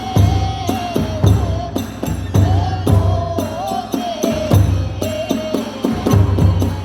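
Kagura hayashi music: a bamboo flute playing a wavering melody over steady, driving strokes of a large drum and clashing small hand cymbals.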